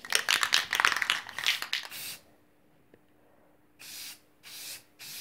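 Clear coat being sprayed: one long hissing spray of about two seconds, then three short spray bursts near the end.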